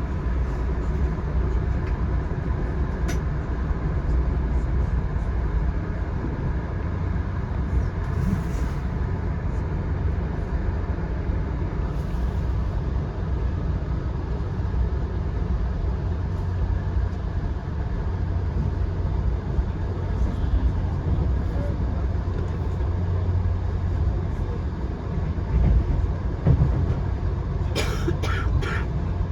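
Steady low rumble of a VIA Rail passenger train rolling along the track, heard from inside the passenger car, with a few short sharp sounds near the end.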